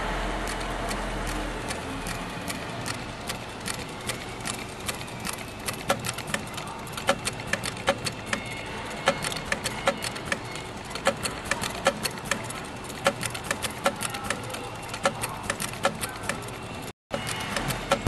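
Industrial heavy-duty sewing machine stitching a decorative cross stitch through fabric at a slow pace, its needle mechanism clicking about two or three times a second.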